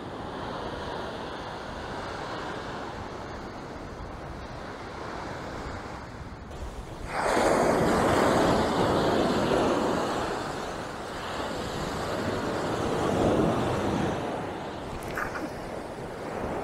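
Ocean surf breaking and washing up a sandy beach, a steady rushing noise that gets louder about seven seconds in and swells and eases with the waves.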